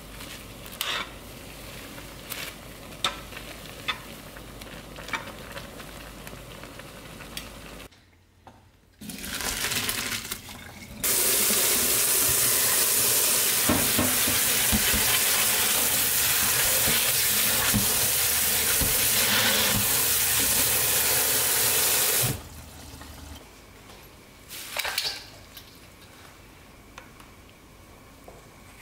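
Instant noodles bubbling in a pot, with light clicks of metal tongs. Then a tap runs hard over the cooked noodles in a stainless-steel strainer in the sink for about eleven seconds, rinsing them, and stops suddenly. A few quiet clicks of handling follow.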